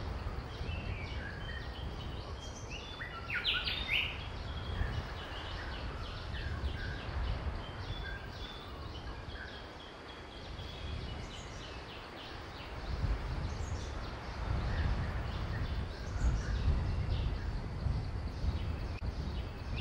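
Small birds chirping in short, scattered calls over a steady low rumble, which grows louder in the second half.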